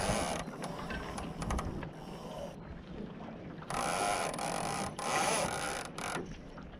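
Barton ratchet block on a Laser dinghy buzzing with rapid clicks as the thin mainsheet is pulled through it, in three short pulls: one at the start and two in the second half.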